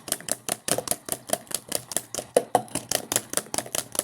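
Clothes dryer running just after being started, with a fast, steady clatter of about five to six sharp clicks a second.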